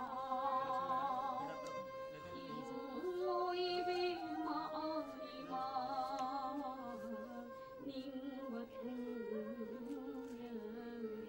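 Manipuri Rasa dance music: a woman singing a melody with heavy vibrato over a steady held drone note, with light percussion taps.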